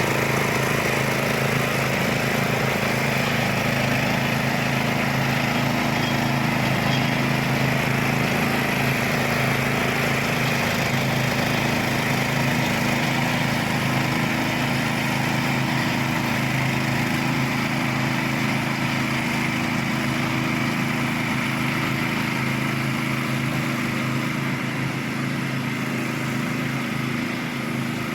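Small petrol engine of a homemade zero-turn ride-on lawn mower running steadily, its level easing slightly near the end.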